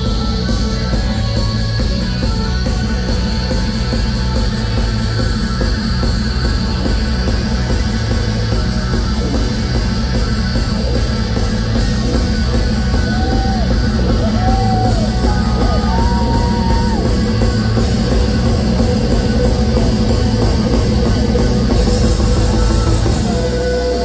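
Shoegaze rock band playing live at full volume: a dense wall of distorted electric guitars over heavy bass and drums, with a few short gliding notes rising above it in the second half.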